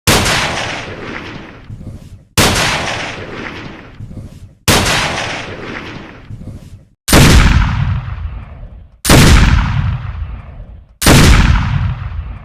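Gunshot sound effects: six single shots about two seconds apart, each a sharp bang followed by a long echoing decay.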